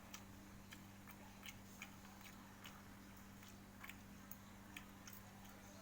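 Faint chewing: soft, irregular mouth clicks and smacks of someone eating noodles and banana blossom, over a steady low hum.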